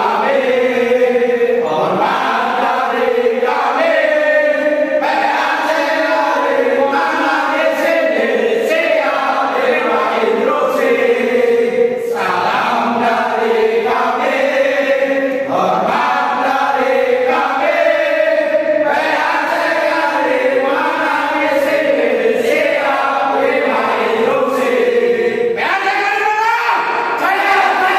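A group of men singing together in unison, voices holding and moving between sustained notes.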